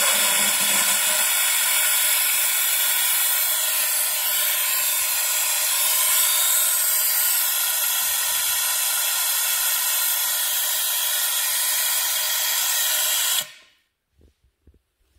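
Compressed air rushing through a venturi vacuum coolant-refill tool on the expansion tank: a loud, steady hiss as it pulls vacuum on the cooling system before new coolant is drawn in. The hiss cuts off suddenly about 13 seconds in, followed by a few faint clicks.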